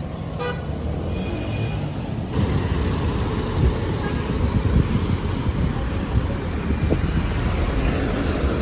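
Road traffic going past: a steady rumble of vehicle engines and tyres.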